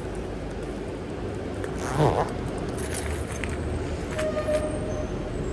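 Steady street background noise with a low traffic rumble, and one short sound about two seconds in.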